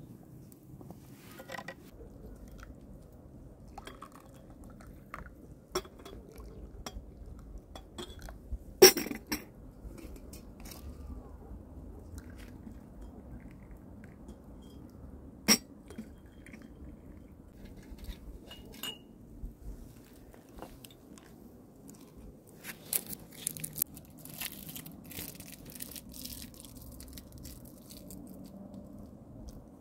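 Scattered clinks and taps of tea glasses and dishes on a metal tray over a low steady background. The sharpest clinks come about nine and fifteen seconds in, and a run of small clinks follows near the end.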